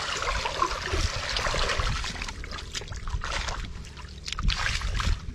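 Shallow muddy water sloshing and splashing in irregular bursts as hands grope through it for fish and feet wade through it.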